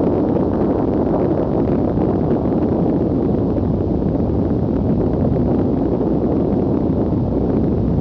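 Explosion sound effect: a steady, dense low rumble with fine crackle, with no separate blasts or shots standing out.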